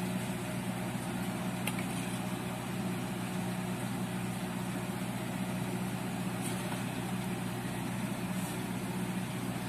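Steady low hum of a running motor over an even background hiss, with a couple of faint clicks.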